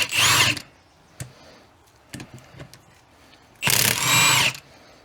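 A power tool runs in two short bursts of about a second each, one at the start and one around four seconds in, loosening the ring gear bolts on a differential carrier. There are faint light clicks between the bursts.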